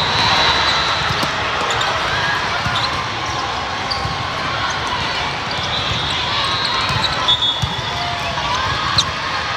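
Volleyball play in a gym: a few sharp ball hits, the clearest about nine seconds in, and short high squeaks over steady crowd chatter.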